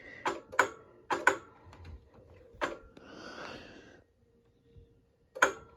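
Power wheelchair reversing slowly: a series of sharp clicks, a short whirring hiss about three seconds in, then a faint steady hum.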